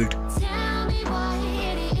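Background music: an electronic track with held tones and a regular beat.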